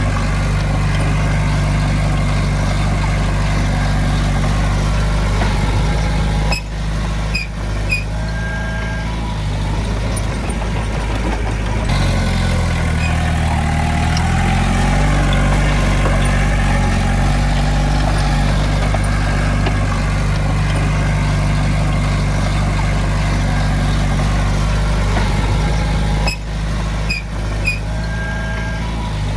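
Heavy diesel engine of earthmoving machinery running steadily. Its note shifts up and down for a few seconds a little under halfway. Twice, once about a quarter of the way in and once near the end, there is a brief dip with a few clicks, followed by a short tone.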